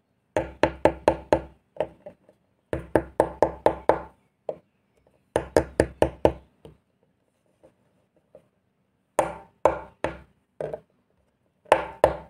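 Set, hard coconut laddus knocked against a wooden table in quick runs of about five knocks a second, with short pauses between the runs. The hard knocks show the sweets have set firm.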